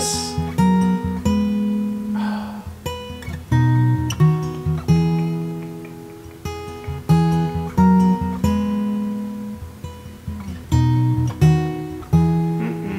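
Solo acoustic guitar playing a slow instrumental passage, picked notes and strummed chords each left to ring out.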